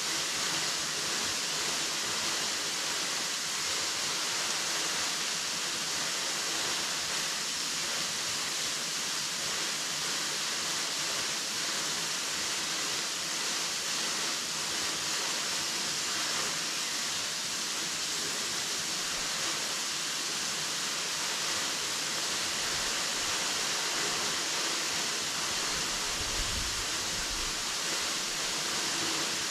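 Henrhyd Falls waterfall: a steady, even rush of falling water, with a brief low rumble about 26 seconds in.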